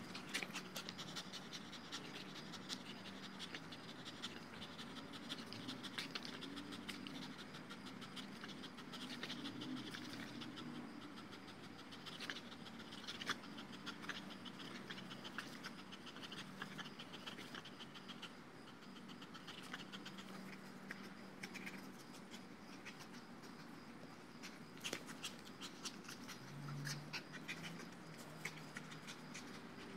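Dogo Argentino panting while it tugs on a Tether Tug pole toy, with many scattered small clicks and rattles from the play.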